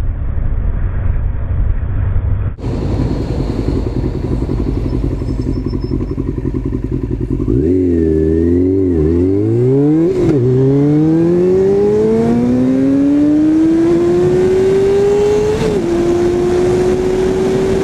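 Sport motorcycle engine heard from the rider's helmet camera, with wind rush: it runs steadily, the engine note falls and wavers around eight seconds in as the bike slows, then climbs in one long steady rise for about five seconds as it accelerates, and settles to an even cruising note.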